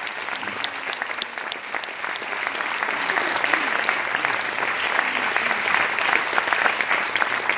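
Audience applauding, the clapping swelling about three seconds in.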